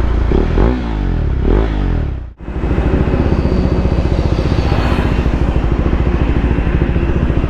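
KTM Duke 390 single-cylinder engine through an Austin Racing aftermarket exhaust, the revs rising and falling twice. The sound cuts out for an instant about two seconds in, then the engine runs on steadily at low revs with an even, rapid pulse.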